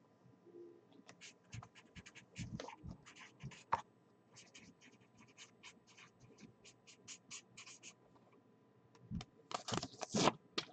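A pen writing a name on a sticky-note pad: quick, irregular scratching strokes, with louder scraping and handling noise near the end.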